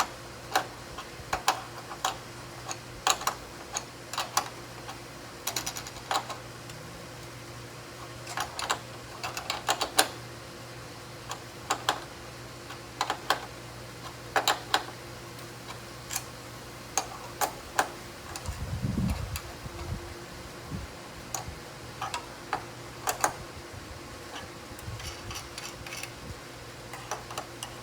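Irregular sharp metal clicks and ticks of a wrench working the lock nuts on a corner tie-down cable's bolt, some in quick little clusters. A steady low hum runs underneath, and there is one dull thump about nineteen seconds in.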